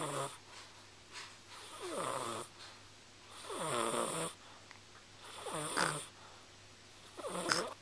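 Steady, rhythmic snoring: about five snores, a bit under two seconds apart, each sliding down in pitch, with quieter breathing between them.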